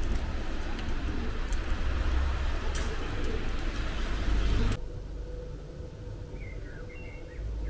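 Outdoor street ambience, a steady hiss with a low rumble, cuts off abruptly a little under five seconds in. A quieter scene follows with a few birds chirping and a faint steady hum.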